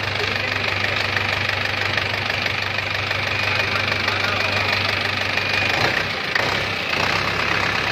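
Four-wheel paddy tractor's engine running steadily, just started for a test run after its cracked lower engine block was welded.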